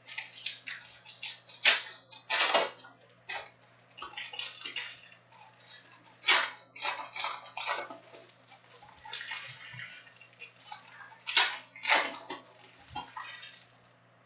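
Trading-card packs and cards being handled: foil pack wrappers crinkling and tearing and cards sliding against each other, in a string of short scratchy rustles with louder bursts about two, six and twelve seconds in.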